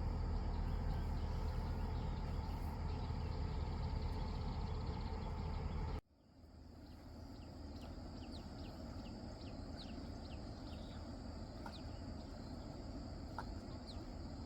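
A small engine running steadily with a low hum, cut off abruptly about six seconds in. Quieter outdoor ambience follows, with scattered short, high, falling chirps.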